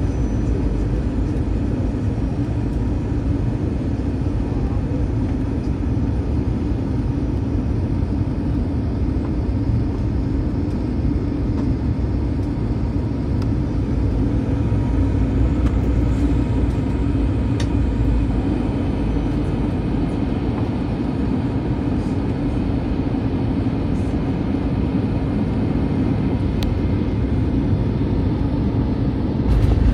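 Steady low roar of an Airbus A321's engines and rushing air, heard inside the passenger cabin on final approach. Near the end a rumbling jolt comes as the wheels touch down on the runway.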